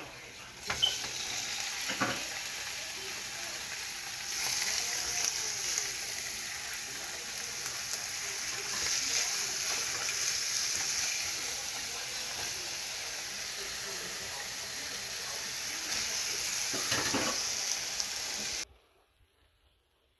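Raw chicken breasts sizzling as they fry in hot oil in a nonstick frying pan, with a few light knocks. The sizzle cuts off abruptly near the end.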